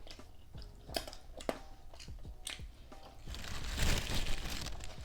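Close-miked mouth sounds of eating crispy fried food: sharp single crunches about a second in, again half a second later and once more near the middle, then a louder stretch of crackly crunching and crinkling near the end.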